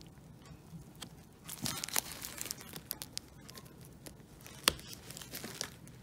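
Small plastic parts of a car's steering-column combination switch being handled and worked by hand: scattered light clicks and scraping, with one sharper click a little before the end.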